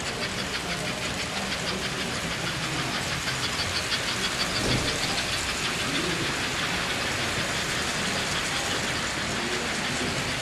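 S-gauge model trains running around the layout: a steady rumble and whir of wheels and motors on the track, with a fast, even clicking.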